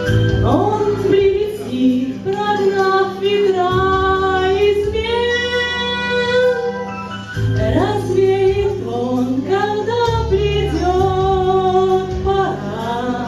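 Music: a woman singing a flowing melody with long held notes over instrumental accompaniment.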